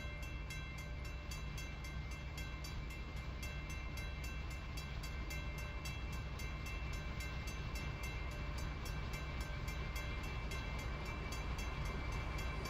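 Railroad grade-crossing bell ringing in rapid, even strokes, over a steady low rumble.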